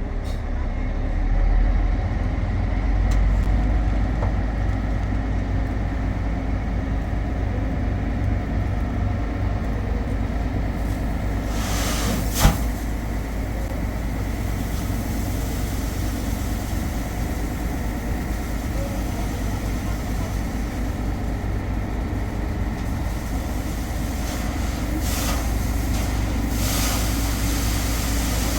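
An engine running steadily at an even pitch, with one sharp click about twelve seconds in.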